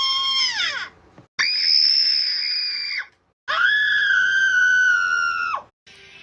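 Three high-pitched screams, each held for one to two seconds with short silences between; the first drops in pitch as it ends, the other two hold a steady pitch.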